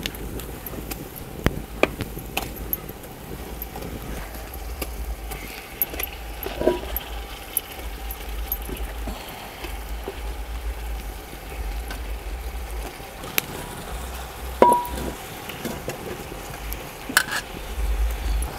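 Pieces of raw pomfret being dropped by hand into a steel cooking pot, with scattered soft knocks and a couple of short metallic clinks of the steel plate against the pot, over a steady low rumble.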